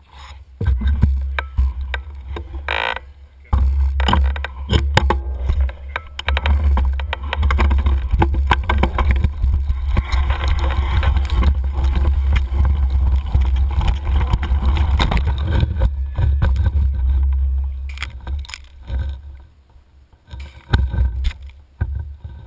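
Mountain bike rattling and clattering over a rough, rocky dirt trail, with heavy wind rumble on the stem-mounted camera's microphone. Near the end the riding noise drops away and a few loud knocks come as the bike crashes to the ground.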